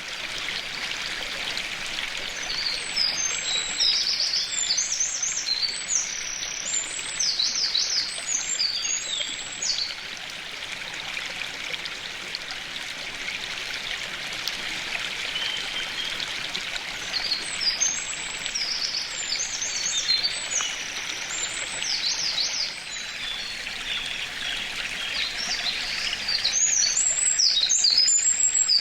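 Eurasian wren singing: long, rapid strophes of high trills and twitters, one starting about three seconds in, another about halfway through, and a third near the end. A stream rushes steadily underneath.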